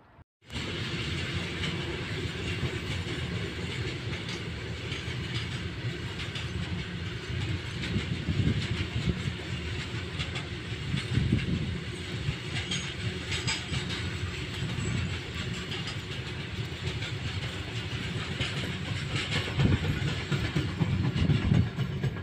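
Freight train rolling past on the adjacent track: a steady rumble of wagons with wheels clattering over the rail joints. It starts abruptly about half a second in.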